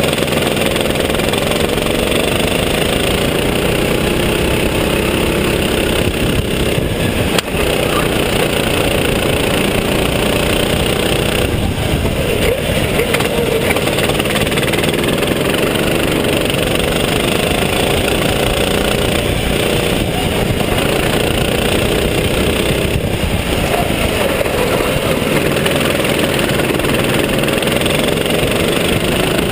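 Sodikart RT8 rental kart's four-stroke engine running hard on track, close to the microphone. Its revs rise and fall as the driver accelerates out of corners and lifts into them.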